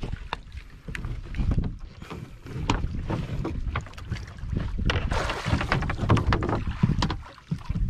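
Wind buffeting the microphone, with scattered knocks and clatter on a wooden outrigger fishing boat. A louder rushing hiss lasts about a second a little past the middle.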